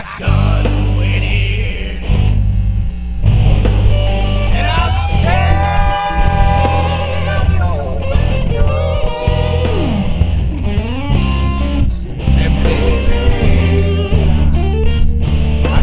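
Blues song with guitar and a man singing, over a heavy steady bass.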